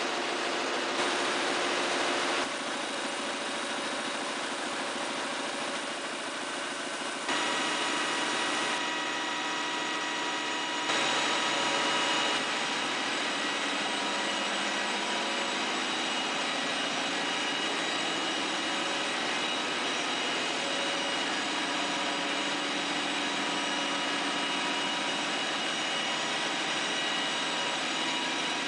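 Solna D 390 web offset printing press running in production: a steady mechanical din with several steady whining tones from the rollers and drives. The level steps up and down abruptly a few times in the first half, then holds steady.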